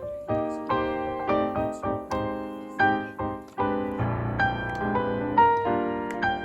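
Keyboard with a piano sound playing jazz chords and a melody line, struck notes that ring and fade.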